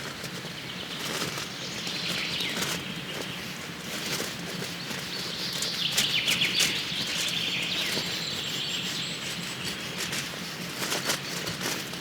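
Wood fire crackling with irregular sharp pops, with birds chirping.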